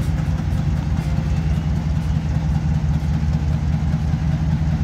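Diesel locomotive engine running steadily: a low, even engine drone with a fast pulse.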